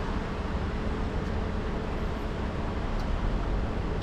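Car engine idling steadily, running again after a blown ignition fuse was replaced.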